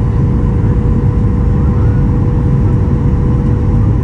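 Cabin noise of a Boeing 737 MAX 8 in descent, heard from inside the cabin: a steady low rumble of airflow and the CFM LEAP-1B engines, with a steady hum running through it.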